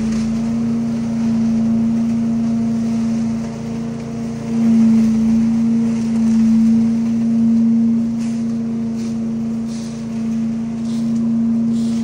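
Leaf vacuum's engine running at a steady drone, swelling and easing a little, with several short hissing rushes in the last few seconds.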